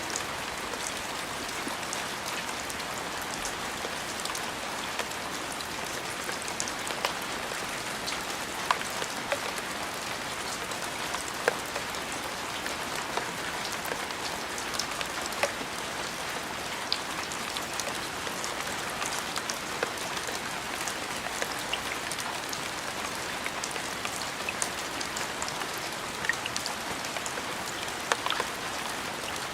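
Steady rain falling, an even hiss dotted with the sharp taps of individual drops landing close by.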